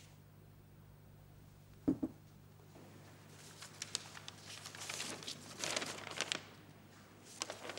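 A folded sheet of lined notebook paper being picked up and unfolded: crisp crinkling rustles, loudest in the middle and again briefly near the end. Before the rustling, about two seconds in, there is a single soft knock.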